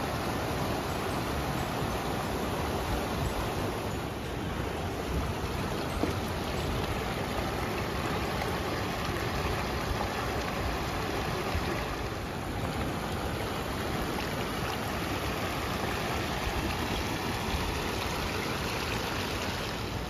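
River water rushing over shallow rocky rapids, a steady rush with no distinct events; it shifts slightly at shot changes about four and twelve seconds in.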